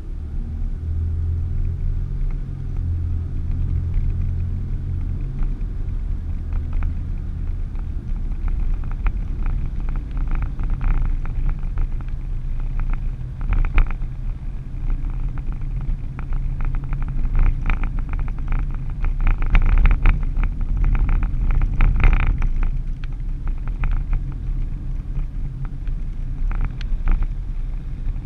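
A vehicle driving on a paved highway, heard from inside the cab: a steady low engine hum with road and tyre noise, and scattered short clicks and knocks through the middle.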